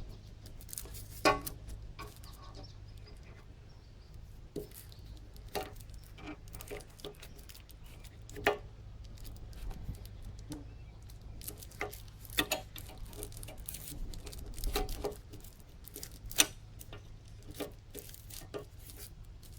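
Scattered sharp metallic clicks and clinks of hand tools on a hydraulic hose fitting being loosened, a dozen or so at uneven intervals, over a low steady hum.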